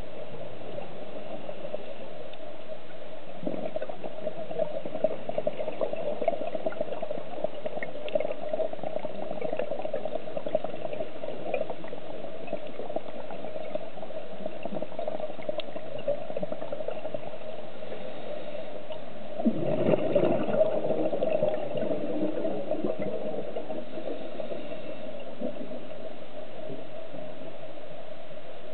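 Underwater sound on a scuba dive: a steady muffled water noise, with bursts of bubbling from a diver's exhaled breath, the loudest about two-thirds of the way through.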